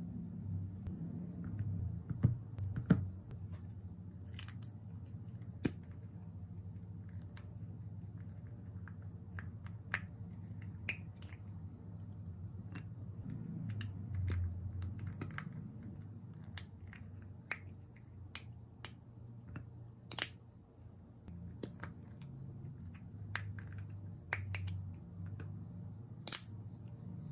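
Scattered small clicks and taps of hard clear plastic phone-grip parts being handled, set down and pressed together, over a low steady hum.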